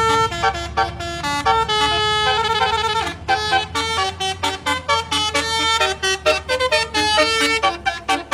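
Multi-tone Basuri telolet horn playing a quick melodic run of short notes, changing pitch several times a second, over a low steady rumble.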